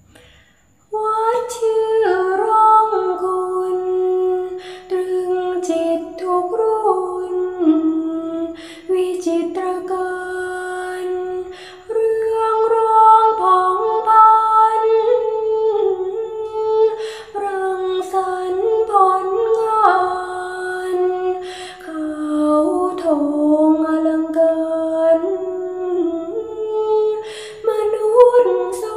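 A woman chanting a Thai poem in thamnong sano, the traditional Thai melodic recitation style, singing a kap surangkhanang verse. A solo voice holds notes and slides between them, beginning about a second in.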